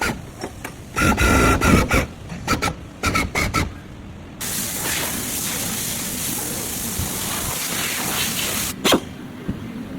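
A run of irregular knocks and clatters from bodywork tools, then a steady compressed-air hiss for about four seconds, like a spray gun or air blow gun in use. The hiss stops with a single knock near the end.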